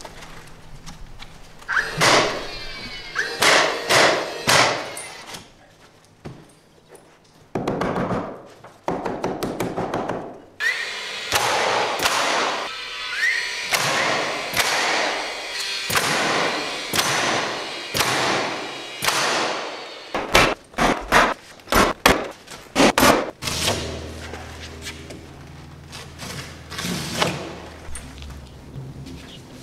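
Cordless nail gun firing nails through plywood shim pieces into a door header: a series of sharp shots, mostly a second or more apart, with a quick run of them about two-thirds of the way through.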